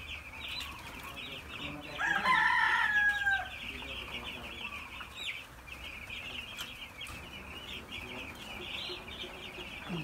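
A flock of young broiler chicks peeping continuously, many rapid high peeps overlapping. About two seconds in, one louder, drawn-out call lasts over a second and falls in pitch at its end.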